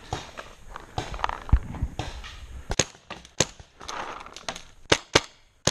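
Paintball marker firing about five single shots, sharp pops at uneven spacing in the second half. Before them come rustling and a dull thump.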